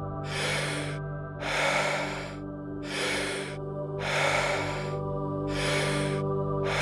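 Rhythmic deep breathing for the Wim Hof method: forceful full breaths, one about every 1.3 seconds, over a steady drone of background music.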